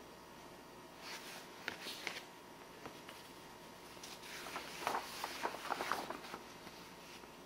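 Old scrapbook pages and a yellowed newspaper rustling and crackling as they are handled and turned by hand, in two bursts: a short one about a second in and a longer, louder one from about four to six seconds in.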